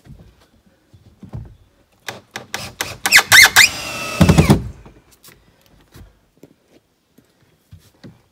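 Cordless drill driving screws through the wall studs to tack two plywood-sheathed walls of a deer blind together. It runs in short whining bursts from about two to four and a half seconds in, with a few light knocks before and after.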